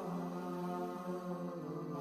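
Background music of slow, held drone-like tones, the chord shifting once about a second and a half in.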